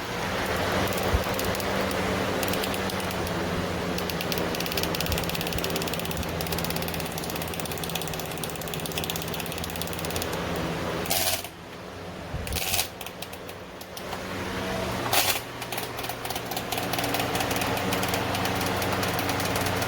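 Pelonis 20-inch four-blade box fan running: a steady whir of moving air with a hum and a fast, fine clattering. About eleven seconds in, the sound dips for a few seconds, and from about fifteen seconds it runs on with its hum at a different pitch.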